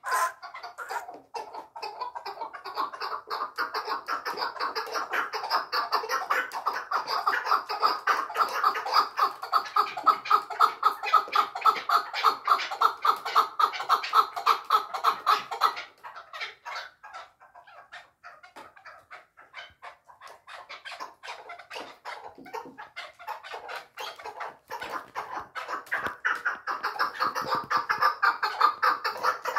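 Chukar partridge calling in a long, rapid run of clucking notes, several to the second, building in loudness. About halfway through the run breaks off into scattered fainter notes, then builds again near the end.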